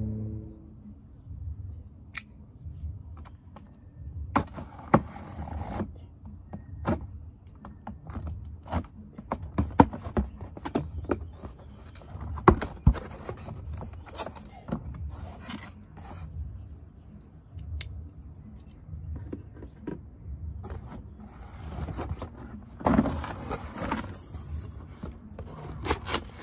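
A cardboard shipping box being cut open with a blade and unpacked: scattered sharp clicks and taps from the blade and hands on the cardboard, with rustling, scraping spells as the tape is cut and the flaps are pulled open, about five seconds in and again near the end.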